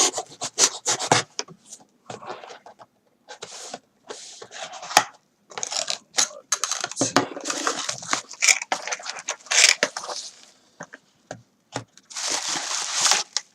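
A cardboard knife box and its packaging being opened by hand: irregular scraping, rustling and tearing in fits and starts, with short sharp clicks and brief pauses.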